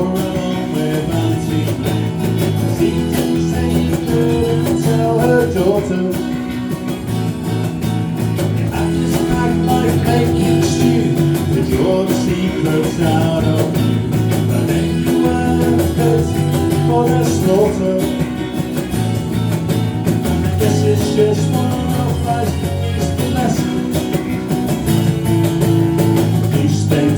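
Live band music with guitar prominent, an instrumental passage of the song running at a steady level.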